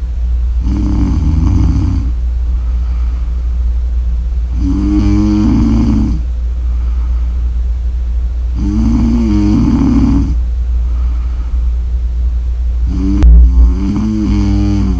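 A woman snoring in slow, regular breaths: four snores about four seconds apart, each lasting about a second and a half, over a steady low hum. A brief low thump comes during the last snore.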